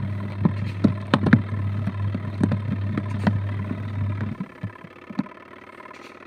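Adler AD8051 mini washing machine's motor turning the wash, a steady hum with irregular sloshing and knocks, which stops about four seconds in. This is the stop-start gentle agitation of the wool cycle.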